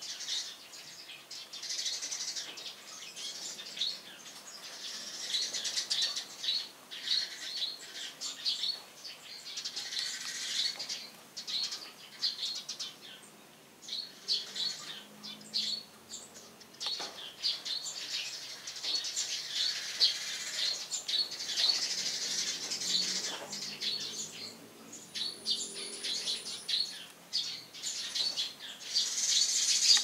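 Eurasian tree sparrows chirping: a steady stream of short, high chirps from several birds, easing off briefly about halfway through.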